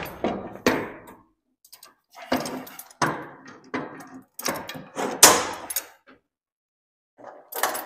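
Pipe clamps being set on an aluminum hull panel: a series of irregular metal clanks and knocks as the clamp bars and jaws strike the sheet, each ringing briefly, with a pause before one last knock near the end.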